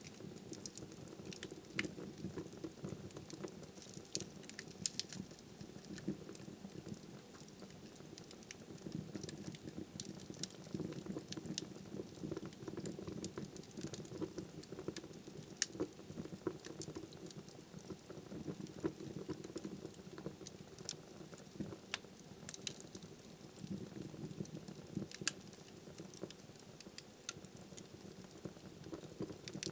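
Wood fire burning in a fireplace: a steady low rumble of flames with frequent irregular sharp crackles and pops of burning firewood.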